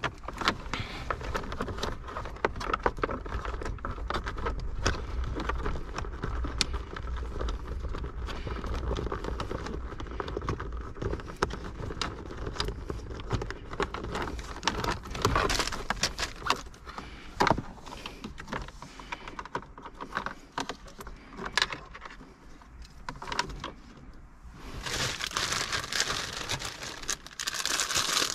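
Car-radio wiring and plastic connectors being handled and fed behind the dashboard: scattered small clicks, rattles and rustles. Near the end a plastic parts bag is handled, crinkling loudly.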